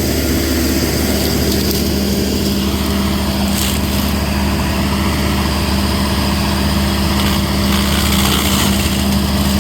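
Cummins diesel engine of a Rayco RG74T track stump grinder running steadily at working speed, with its cutter wheel engaged and spinning.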